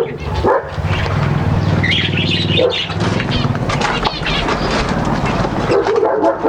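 Cage birds fluttering their wings and chirping in an aviary, with a steady low hum underneath.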